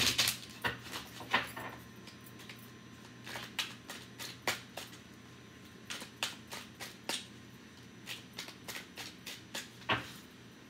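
Tarot cards being shuffled and handled by hand: an irregular run of sharp clicks and snaps from the card edges, loudest near the start and again near the end.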